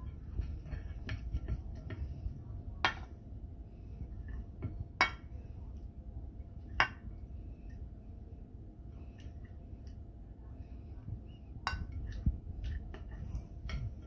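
A metal serving spoon clinking and scraping against ceramic bowls and a plate as grilled shrimp are spooned onto linguine. There are scattered light clinks, with four louder knocks spread through, over a low steady background rumble.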